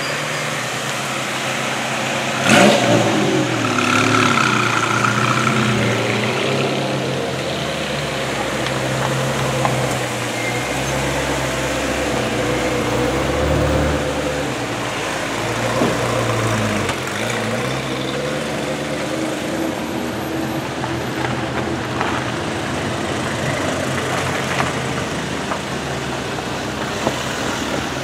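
Ferrari V8 sports cars, among them 348s, passing slowly one after another, engine pitch rising and falling as they pull away and rev. A short loud burst of revs comes about two and a half seconds in.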